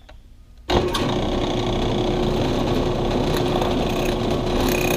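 Drill press switched on about a second in, its motor and spindle then running steadily with a constant hum, fitted with a small 1/16 to 1/8 inch bit.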